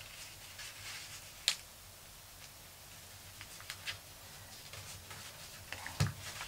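Paper being folded and creased by hand, faint rustles and ticks with a sharp tick about a second and a half in, and a soft thump near the end as the folded paper egg shape is pressed flat against the table.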